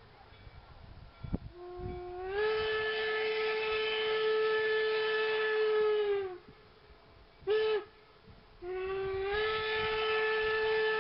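Whistle of the UP No. 119 replica 4-4-0 steam locomotive: a long blast, a short toot, then another long blast. Each blast scoops up in pitch as it opens and sags as it closes. Together with the blast just before, this makes the long-long-short-long grade-crossing signal.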